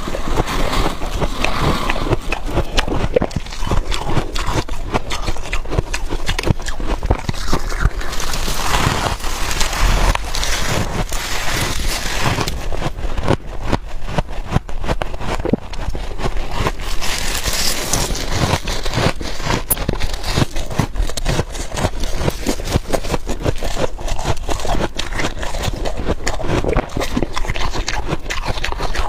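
Freezer frost being bitten and chewed close to the microphone: a dense, continuous crisp crunching without pause.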